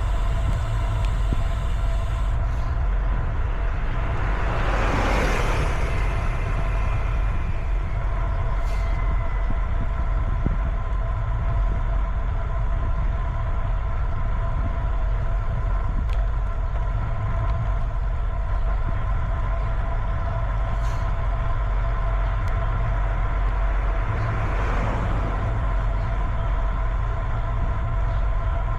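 Steady wind rumble and road noise while riding a bicycle. A passing motor vehicle swells up and fades about five seconds in, and another passes near the end.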